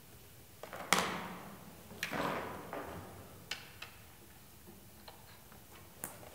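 Acoustic guitar strummed twice, each strum ringing and fading away, with light clicks and ticks in between as the tuning pegs are handled.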